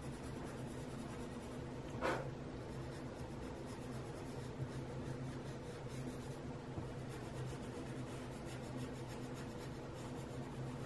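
Colorless blender pencil rubbed on paper in small circular strokes: a faint, steady scratching over a low, steady hum, with one short soft noise about two seconds in.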